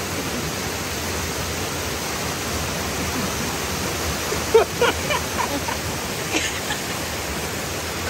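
Steady rush of running water, with a few brief pitched sounds near the middle.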